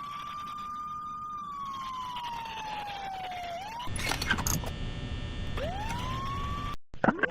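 Fire truck siren wailing: one long tone that rises, holds briefly, then slowly falls. About four seconds in it cuts to a noisier version with a few sharp bursts over a steady drone. Near the end the siren winds up again from low to high.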